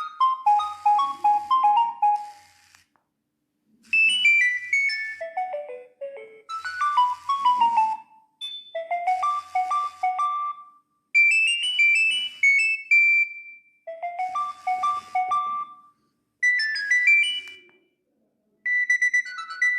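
Nokia 7250 mobile phone playing its ringtones through its small built-in speaker: a string of short synthesized melodies of quick stepped notes, separated by brief silent gaps.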